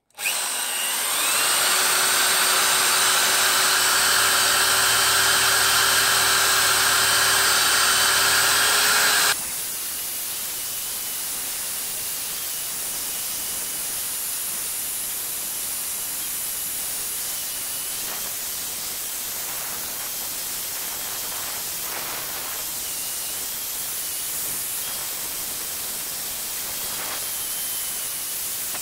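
Angle grinder with a wire cup brush scouring red paint off a 20 kg anvil, running at full speed with a steady hum under the brush noise. About nine seconds in, the sound drops abruptly to a quieter, steadier grinding with a thin high whine as the grinder keeps working the anvil's painted surface.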